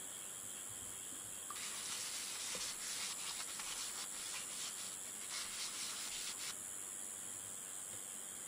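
Folded paper towel rubbing cooking oil across the plate of a hot sandwich maker: a scratchy wiping sound of quick short strokes, starting about a second and a half in and stopping about six and a half seconds in.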